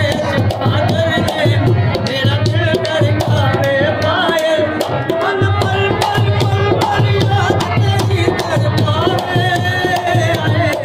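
Rajasthani folk music: a harmonium plays a melody over a hand-beaten dholak drum keeping a steady, repeating rhythm.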